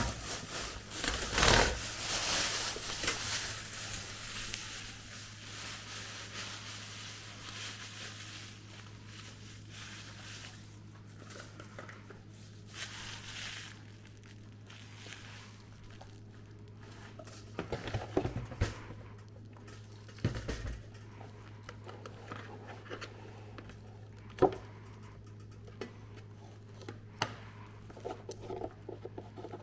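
Packaging crinkling and rustling as a new toaster is unwrapped and handled, loudest in the first few seconds and then quieter, with a few scattered knocks and clicks further on. A steady low hum runs underneath.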